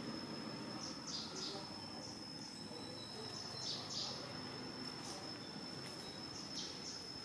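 Outdoor insect and bird ambience: a steady, high-pitched insect tone that runs throughout, with short high chirps, often in pairs, recurring every second or so.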